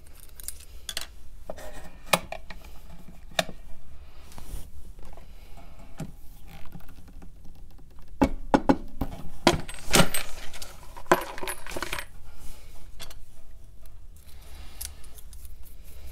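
Small metal pen-kit parts and a metal pen assembly press clicking and clinking as they are handled, a run of sharp separate clicks that comes thickest and loudest about eight to twelve seconds in.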